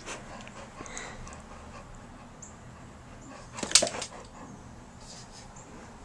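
A pet dog gives one short bark-like sound about three and a half seconds in, against a faint background.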